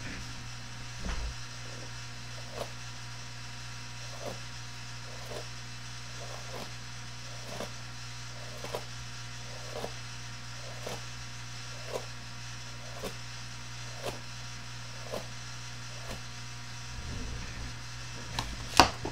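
Steady low electrical hum with a faint click repeating about once a second, and one sharp knock near the end.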